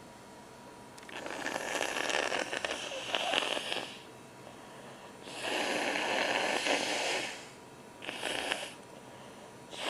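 Nose blown into a tissue three times: a long blow of about three seconds, a second of about two seconds, and a short one near the end.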